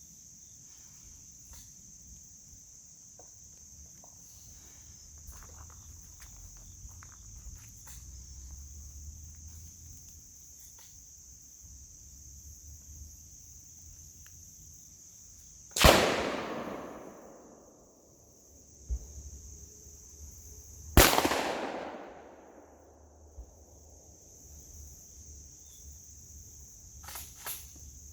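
Two loud gunshots about five seconds apart, each echoing and dying away over a second or two, with fainter pops near the end. Behind them is a steady high buzz of insects.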